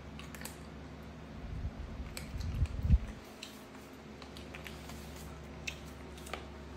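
A young macaque eating small green fruits at a table: faint scattered clicks and soft crunches of chewing and handling fruit. Low rumbling bumps build from about a second and a half in, ending in one loud thump at about three seconds.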